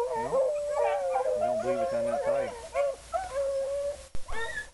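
A pack of hunting beagles baying and howling together, many voices overlapping, with one long drawn-out bay held through most of it.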